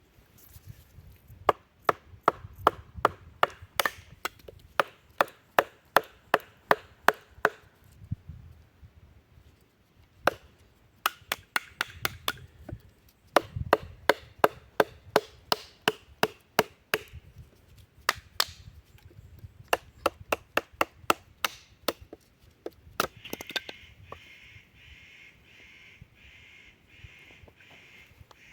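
Knife being batoned into wood: a series of sharp wooden knocks, about three a second, in runs broken by short pauses. Near the end the knocks stop and a fainter, evenly pulsing rasp goes on for a few seconds.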